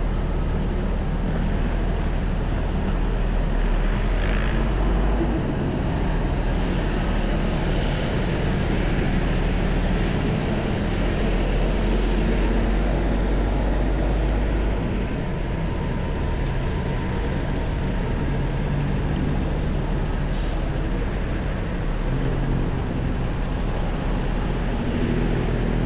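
Steady road traffic on a busy city street: a continuous rumble of vehicle engines and tyres, with no single vehicle standing out.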